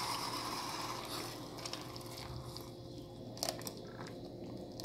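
Thick peanut sauce poured from a container into a clay cazuela over chicken: a soft, faint pouring hiss that fades as the stream thins, with one brief click about three and a half seconds in.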